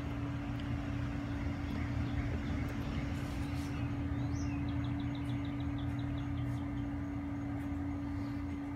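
Steady machine hum: one constant tone over an even whooshing haze. A short run of rapid high ticks, about five a second, comes about four seconds in.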